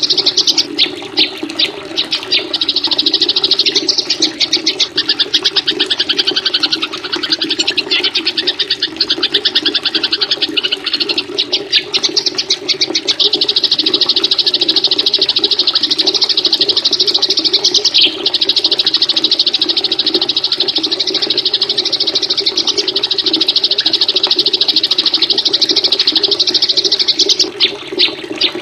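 Songbird masteran recording: rapid, high, near-continuous chattering trills with brief breaks, from small songbirds used as fill-in song for a white-rumped shama to learn. A steady low rushing sound runs underneath, the water sound mixed into the track.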